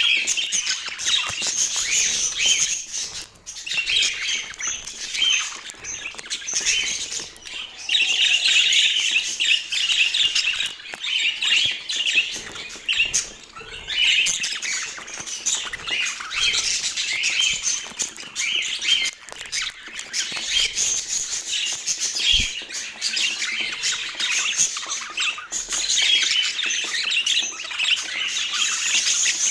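A flock of budgerigars chattering and warbling without a break, a dense mix of squawks and chirps that swells and eases in loudness.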